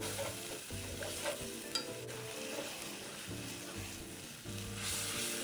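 Yellow noodles being stir-fried in a wok of boiling sauce: a steady sizzle with the stirring and scraping of chopsticks and a spatula, and a couple of light clicks. Faint background music runs underneath.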